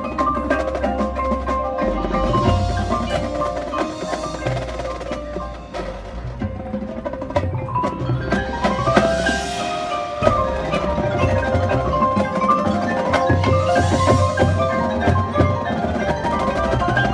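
High school drumline and front ensemble performing: marimbas and other mallet keyboards ring out sustained pitched lines and runs while drums thud underneath.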